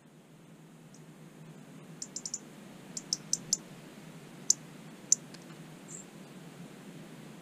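European robin giving sharp, high 'tic' calls: a quick run of four about two seconds in, another run of four a second later, then two single ticks, with a short thin chirp near the end.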